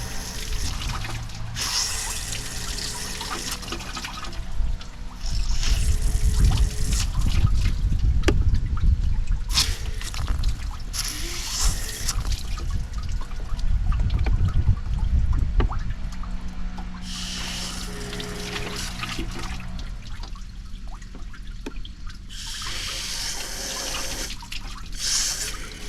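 Water from a garden hose being flushed through a 1998 Jeep Wrangler's heater core and splashing out of the open heater hose, pouring and trickling in uneven surges. The flush is running to clear buildup from the core.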